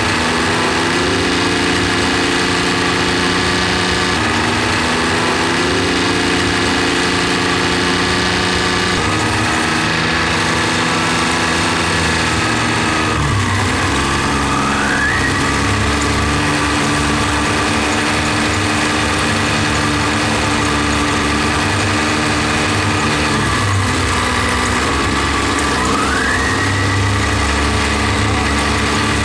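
John Deere tractor's diesel engine running while the tractor drives along, heard close up from the driver's seat. The engine note shifts pitch several times, with a clear drop about thirteen seconds in.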